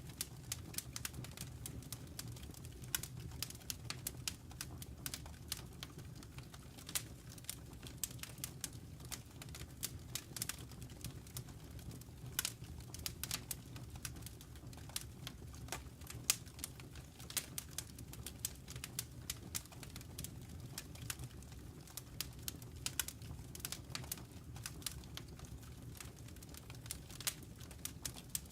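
Wood fire crackling in a fireplace: irregular sharp pops and snaps, several a second, over a low steady rumble of burning.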